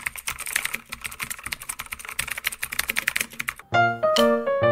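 Rapid computer-keyboard typing clicks, a typing sound effect laid over on-screen text. They stop about three and a half seconds in, when bright piano music begins.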